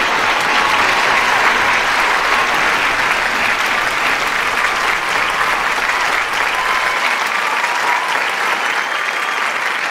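Audience applauding steadily, easing off a little toward the end.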